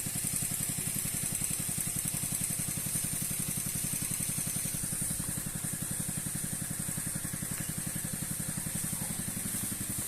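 Small engine of a Sancen power sprayer running steadily at a fast, even pulse while it drives the pump that feeds the long spray hose.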